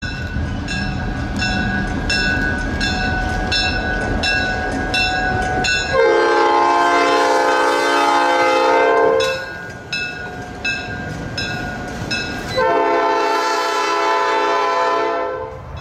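Diesel freight locomotives passing a grade crossing with a bell ringing about three times a second over the engines' low rumble. The locomotive's multi-chime air horn then sounds two long blasts, the second starting about three seconds after the first ends.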